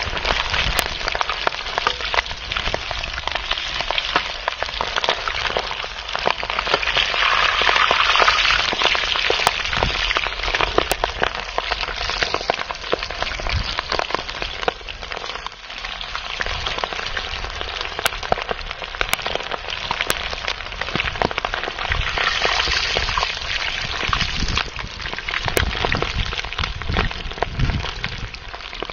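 Chicken feet deep-frying in hot oil in an iron kadai: a steady, loud sizzle thick with small crackles and pops as the oil bubbles hard around the coated pieces.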